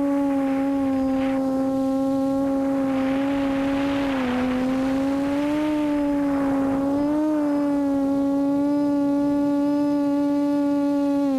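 QAV400 quadcopter's brushless motors and 8x4.5 propellers humming steadily as it flies, one steady tone with overtones whose pitch dips and rises slightly with throttle changes. A rush of hissy noise swells over the middle.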